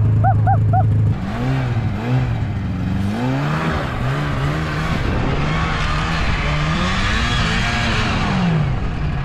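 Snowmobile engine holding one steady note, then, about a second in, revving up and down again and again under a broad rushing hiss as the sled is ridden.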